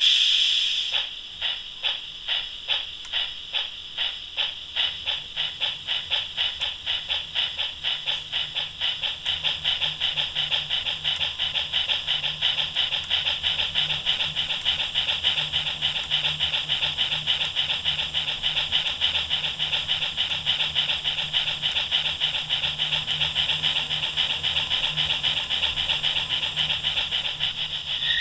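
Digital steam-locomotive sound from an ESU LokSound 3.5 decoder through a small capsule speaker in a Regner Kathi garden-railway locomotive model. A short burst of steam hiss comes first, then exhaust chuffs that start slowly and speed up until they almost run together, over a low hum.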